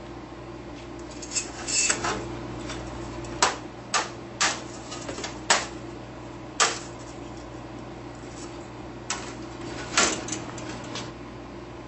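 Capacitive-discharge spot welds firing through a handheld single-probe electrode into aluminium sheet: a series of about nine sharp snaps at irregular intervals over a steady low hum.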